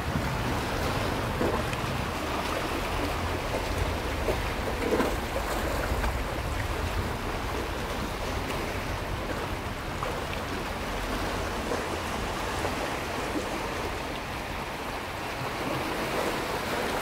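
Sea waves washing against a rocky shore in a steady rush of surf, with a low wind rumble on the microphone.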